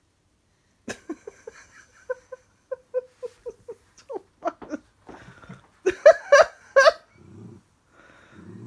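A woman laughing in a quick run of short 'ha-ha' pulses, then three loud bursts of laughter or play noise about six seconds in. Near the end, a small dog under a blanket gives low rumbling play growls.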